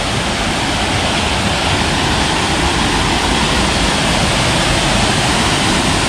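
Loud, steady rush of fast-flowing river water, an even roar with no breaks.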